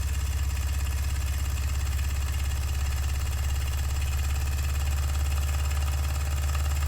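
Empire No.62 toy steam engine running fast at full wall voltage, a steady very rapid beat as it shakes.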